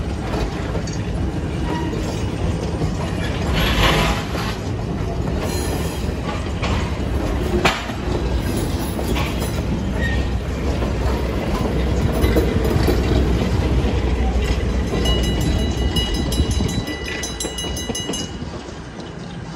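Train running on the rails, a steady rumble with a few sharp knocks from the wheels. It fades away near the end.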